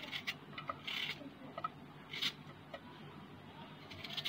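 A knife slicing through a raw onion held in the hand: several short, crisp cuts at an irregular pace.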